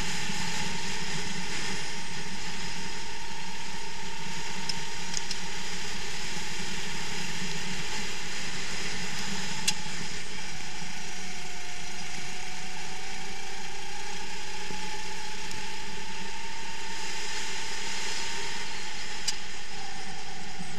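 Racing kart's engine running at speed from on board, with a steady mechanical rattle; its note drops about halfway through as the kart slows for a corner, then climbs back. Two sharp clicks, about ten and nineteen seconds in.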